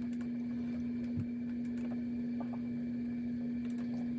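A steady low-pitched hum on one even pitch, with a fainter high tone and a few faint ticks.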